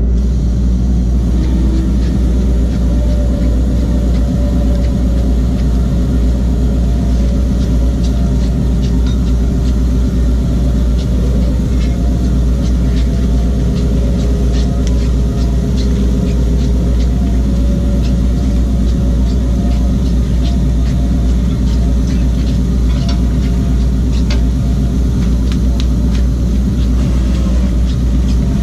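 A boat motor runs steadily with a low rumble and a few steady tones over it. Scattered light clicks and rattles come from the net gear as the salmon net and its float line come aboard over the roller; the clicks grow more frequent in the second half.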